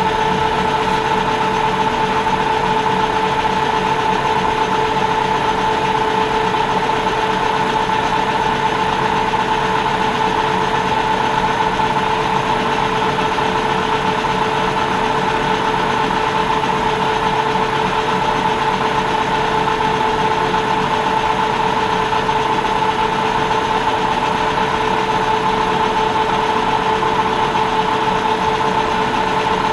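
Metal lathe running steadily, with a constant whine over a dense mechanical hiss.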